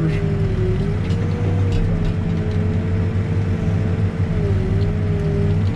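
Heavy-equipment diesel engine running steadily, with a whining tone that drifts slightly up and down in pitch.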